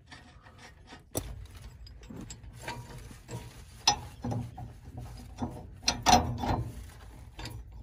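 Irregular metal clicks and clanks of hand tools and hardware as a bolt is worked on a mobile home axle, with a sharp knock about a second in and the loudest clanks about six seconds in.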